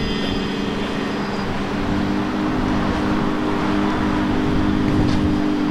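Male barbershop quartet (tenor, lead, baritone and bass) singing unaccompanied, holding one long sustained chord that closes the song.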